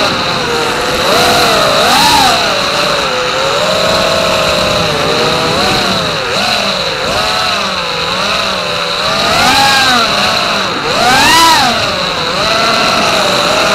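Brushless motors and props of a 5-inch FPV racing quadcopter (Racerstar BR2307S 2500KV motors spinning DalProp T5045C props) whining in flight, the pitch swooping up and down again and again as the throttle is punched and chopped through turns. A steady high whistle runs underneath.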